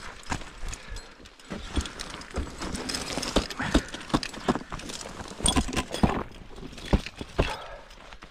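Ice-climbing gear at work: irregular sharp knocks of ice tools and crampons striking ice, with scraping and the clink of metal gear in between.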